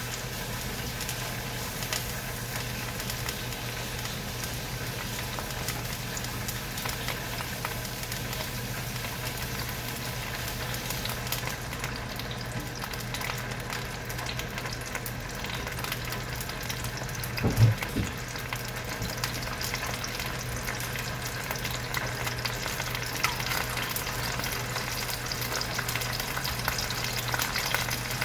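Food sizzling and crackling steadily as it fries in a hot pan on the stove, over a low steady hum. One brief low thud about two-thirds of the way through.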